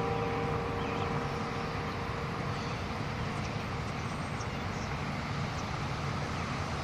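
Church bell's ring dying away after a strike, its tone fading out over the first two to three seconds, over a steady background rush of noise.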